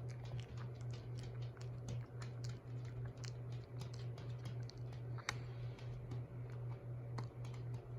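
Ceiling fans still coasting down after being switched off: a faint low hum that pulses about three times a second, with light, irregular ticking and clicking.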